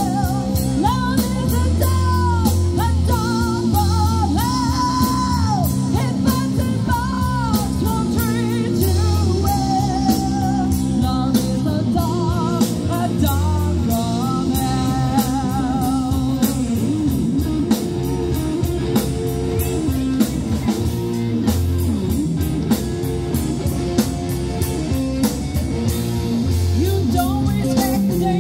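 Live rock band playing: a singer over electric guitar, keyboards and a drum kit keeping a steady beat.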